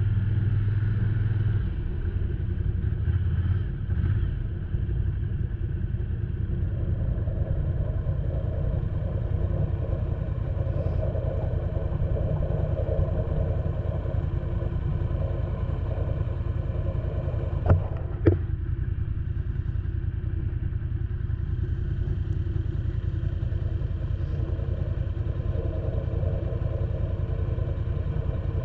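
Snowmobile engine idling steadily. Two sharp clicks come about two-thirds of the way through.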